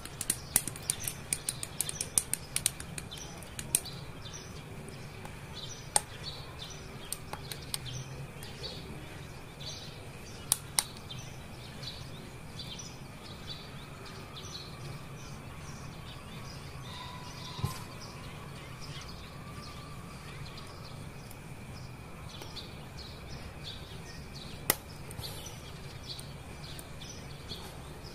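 Hobby side cutters snipping plastic model-kit parts from the runner: a quick run of sharp clicks in the first few seconds. After that come only occasional single clicks as plastic parts are pressed and snapped together, over steady bird chirping in the background.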